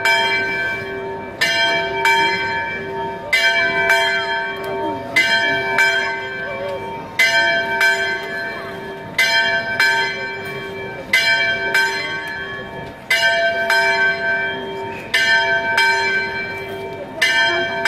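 A church bell tolls over and over, a strong stroke about every two seconds, each ringing on into the next, with some lighter strokes between them.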